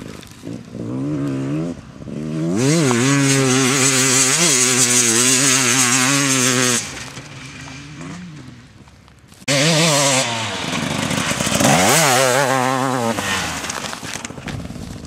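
Enduro dirt bike engines revving hard past the track, the pitch rising and falling with throttle and gear changes. There are two loud passes, one from about two and a half seconds in and one from about nine and a half seconds in, with a lull between them.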